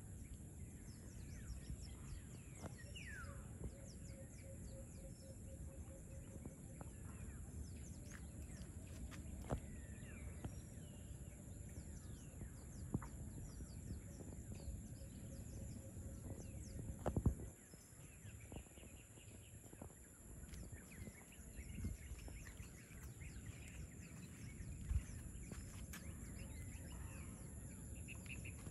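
Scattered bird calls and chirps over a steady low outdoor background rumble. A sharp knock comes about seventeen seconds in, after which the low rumble drops away.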